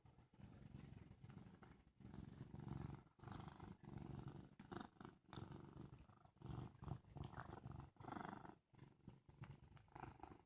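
Domestic cat purring faintly, the purr pulsing in stretches of about a second with each breath.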